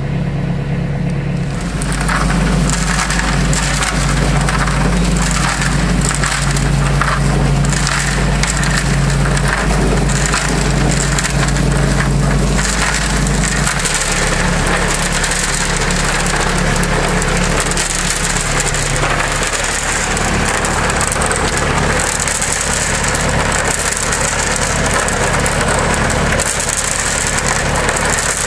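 Homemade cement mixer's steel drum turning on its hydraulic motor and chain drive, with a load of gravel, sand and cement churning and rattling inside. Under it an engine runs steadily to power the hydraulics, and its pitch drops about 14 seconds in.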